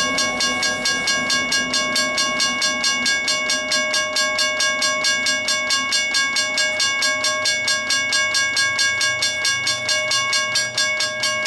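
Mechanical railroad crossing bells ringing, struck rapidly and evenly at about four to five strokes a second with a clear metallic ring, then stopping abruptly at the end.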